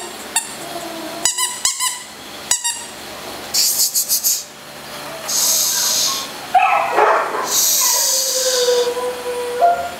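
Several sharp clicks in the first few seconds, then three hissing "shh"-like bursts made by a person at a puppy, with the puppy's thin whining tones in between and a longer whine near the end.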